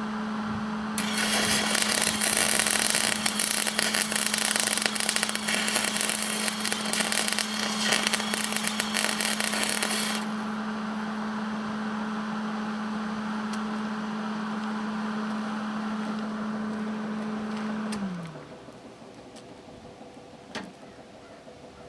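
Angle grinder running: a steady motor whine, with a loud harsh grinding hiss for about nine seconds as the disc works steel. About eighteen seconds in it is switched off and the whine drops in pitch as it spins down. A single metallic clink follows.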